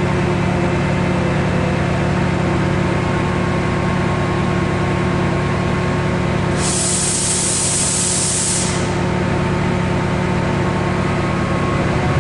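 TransPennine Express Class 68 diesel-electric locomotive's V16 Caterpillar diesel idling with a steady low, pulsing drone. About seven seconds in there is a sharp two-second hiss of compressed air being released.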